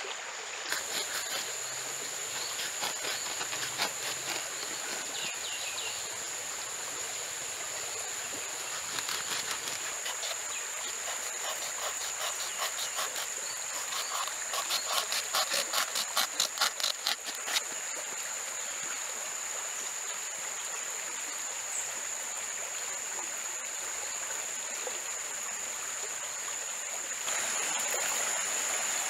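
Machete blade cutting and shaving a block of wood in short repeated strokes, with a quick run of several strokes a second about halfway through. A steady high-pitched buzz and the hiss of a flowing stream run underneath.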